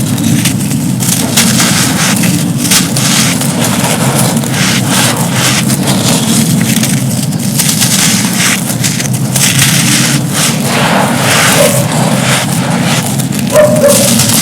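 Hands crumbling and crushing dry, dusty, gritty moulded cups: a dense, continuous run of crunches and grainy crackling, with a steady low rumble underneath.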